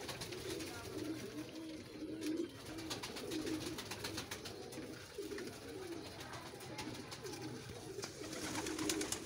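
A crowded flock of domestic pigeons cooing over one another without a break, with many small quick taps from pecking at rice grains on the floor.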